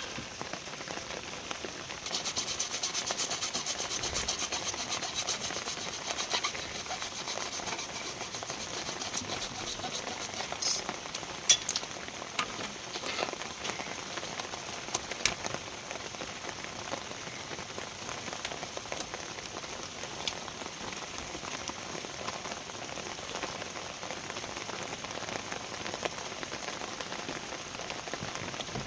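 Steady rain falling on surfaces, louder for several seconds after about two seconds in, with a few sharp clicks around the middle.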